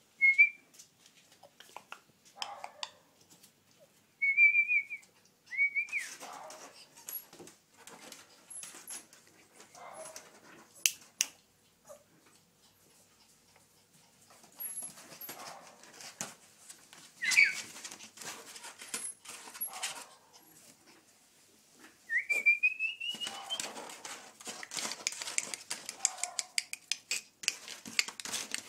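Puppies whining in short, high-pitched whimpers several times, with one longer rising whine late on, among clicking and scuffling that grows busier near the end.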